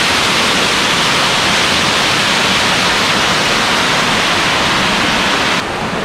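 Small waterfall pouring over rocks into a stream: a loud, steady rush of falling water, stepping a little quieter near the end.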